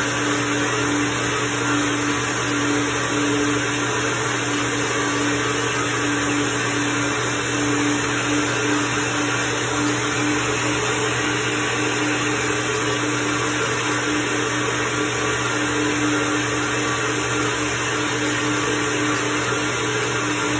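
SuperFlow SF-1020 flow bench running steadily, its motors pulling air through a Harley-Davidson CVO 110-inch cylinder head's port during a flow test: a constant loud rush of air with a steady hum.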